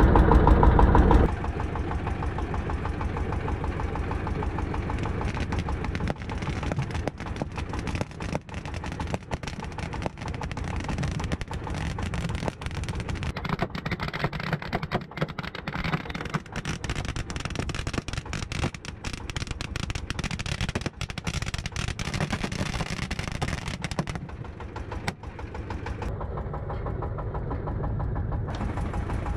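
Small fishing boat's engine running: loud for about the first second, then settling into a steady, rapidly ticking run for the rest.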